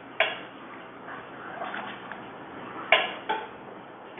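Steel ladle clinking against a stainless steel kadhai as sugar syrup is ladled out into a bowl. There are two sharp clinks, one shortly after the start and one near three seconds in, with lighter clinks between.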